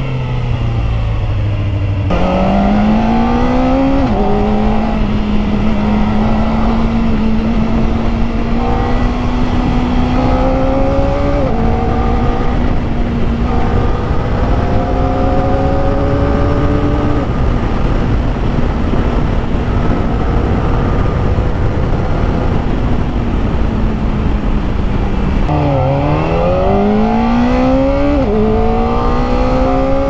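Kawasaki ZX-4RR's 399 cc inline-four engine pulling through the gears. The pitch climbs in each gear and drops back at each upshift, three times. Near the end it falls as the bike slows, then rises steeply again through another shift, over steady wind rush.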